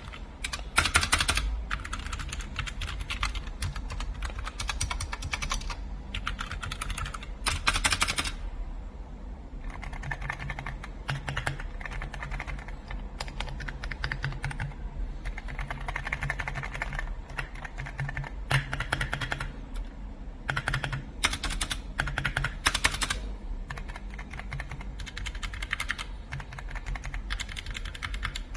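Typing on a mechanical keyboard: a fast, continuous run of key clicks and clacks, with a few louder flurries and a change in tone about a third of the way through.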